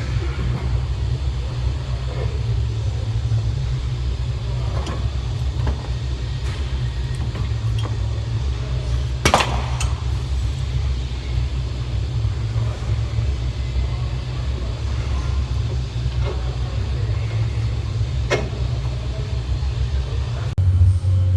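A steady low rumble with a few scattered clicks and knocks of hand tools and trim being handled, the sharpest about nine seconds in.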